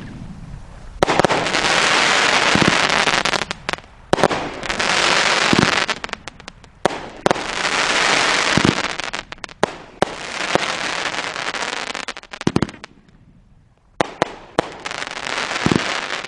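Cannon Brand Gatling Rush 500g firework cake firing in about five rapid volleys of dense crackling shots, each volley a second or two long, with single deeper bangs among them. There is a short lull about three-quarters of the way through.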